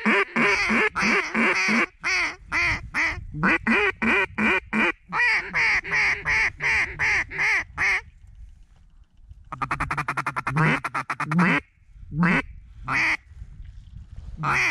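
Mallard duck call blown close by: loud runs of rapid quacks, a pause about eight seconds in, then another fast run and a few single quacks near the end.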